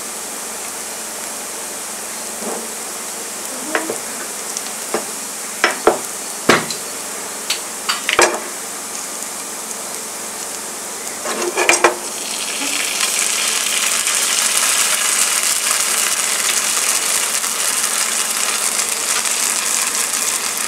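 Chopped onion, garlic and green chilli frying gently in oil in a nonstick pan, with a scattering of sharp knocks and taps. A little past halfway the frying turns into a much louder, steady sizzle as tomato ketchup goes into the hot oil.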